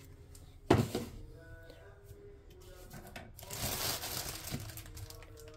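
Kitchen handling noises: a sharp knock about a second in, then a short rustling hiss of a second or so.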